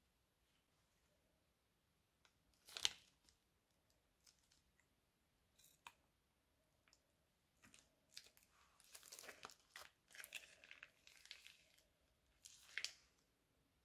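Plastic piping bag of slime being handled, snipped with scissors and squeezed: scattered crinkling and rustling with a few sharp clicks, busiest near the end.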